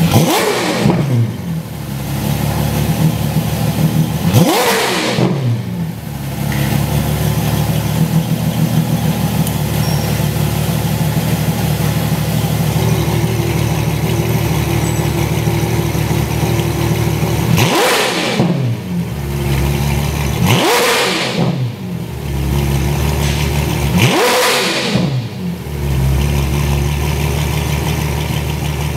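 Ferrari F12 Berlinetta's 6.3-litre V12 through an Fi Exhaust catless system with an X-pipe and valved mufflers, revved while standing: five quick blips that each sweep sharply up in pitch and fall straight back to a steady idle, two early and three close together near the end. The exhaust valves are shut at first and open from partway through.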